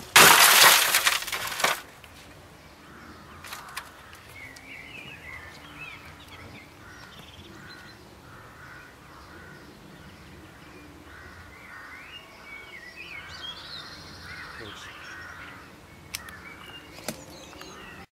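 A Medion CRT computer monitor thrown to the ground, a loud crash lasting nearly two seconds. Birds then chirp in the background, with a couple of sharp clicks near the end.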